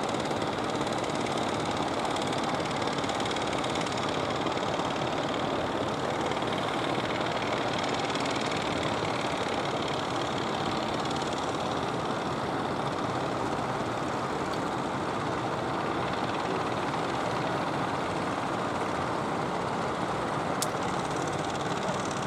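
Engine of a large wooden fishing boat running steadily as the boat comes on at speed, with a steady rush of water.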